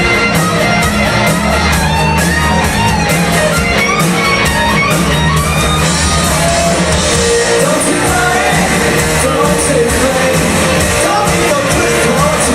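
A live rock covers band playing, with guitar and singing over a steady beat, in a large hall.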